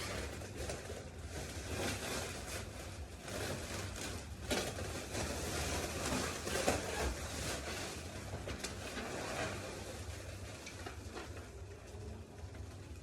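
Rummaging through things by hand: steady rustling and small clicks of handled objects, with a couple of louder knocks about four and a half and nearly seven seconds in.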